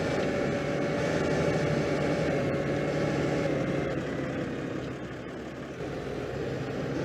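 A 1970s farm tractor's engine running steadily, easing off slightly a little past the middle.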